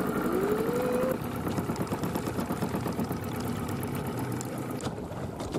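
A fishing boat's motor running as the boat is driven, with a whining tone in it rising in pitch over about the first second.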